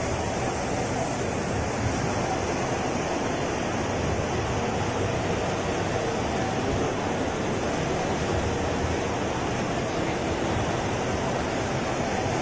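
UV flatbed printer running while printing: a steady, even whooshing noise with no distinct clicks or rhythm.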